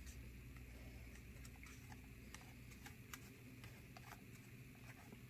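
Faint, irregular light clicks and taps of a plastic embroidery hoop being handled as the embroidered felt is taken out of it, over low room hum.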